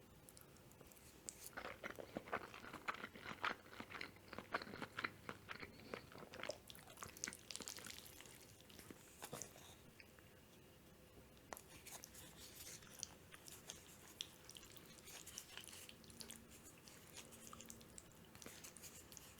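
Close-miked chewing of mushroom carbonara: soft wet clicks and small crunches of a mouth eating, coming in stretches with short pauses between.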